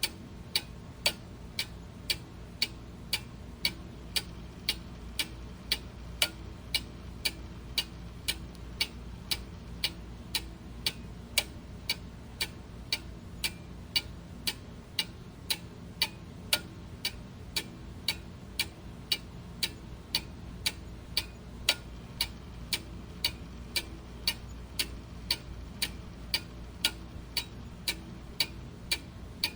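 Clock ticking steadily, about two ticks a second, alternating a stronger and a weaker tick.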